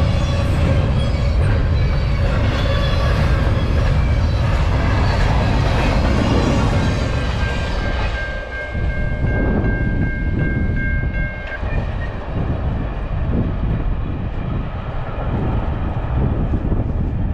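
Double-stack container freight train passing close by with steady wheel-on-rail rumble and clatter. About eight seconds in, a long, steady two-note train horn sounds for about four seconds and cuts off suddenly, while the train's rumble carries on, lower and more uneven.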